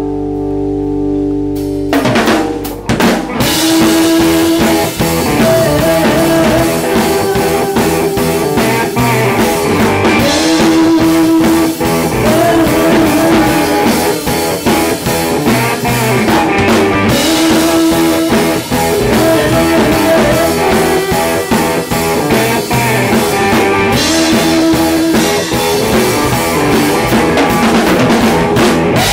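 Rock band playing live: electric guitars and a drum kit. A held chord rings for about two seconds, then the drums and the full band come in and play on.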